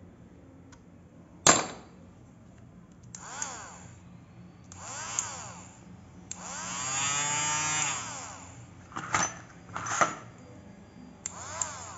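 RS550 DC motor with a drill chuck and bit run in four short bursts, each a whine that rises in pitch as it spins up and falls as it coasts down. The third run is the longest, about a second and a half. A sharp click comes about a second and a half in, and two knocks come near the end.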